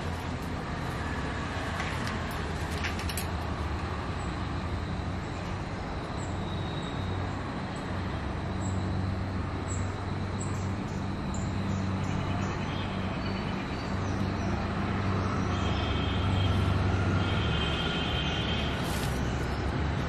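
Steady low rumble of road traffic, with faint short high chirps through the middle.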